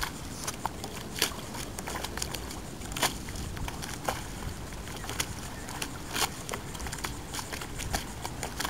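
Irregular sharp crackles and ticks of water lapping and splashing close to the microphone, over a steady low rumble.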